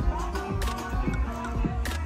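Music with a bass line and sharp beat hits about every second.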